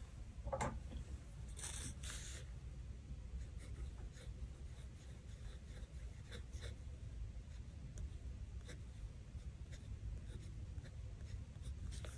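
Faint scratching of a pen writing on a planner page, in short light strokes with a scratchier stretch about two seconds in.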